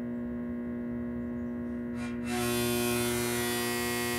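GE Power Flood 1000 mercury vapor floodlight and its ballast humming steadily at mains frequency while the lamp warms up, kind of loud. A little past halfway a harsher, louder buzz joins in, loose parts of the fixture vibrating, and it cuts off suddenly just before the end.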